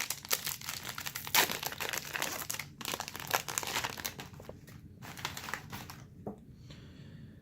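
Plastic trading-card pack wrapper crinkling and tearing as it is torn open, dense crackling for the first few seconds and then quieter rustling.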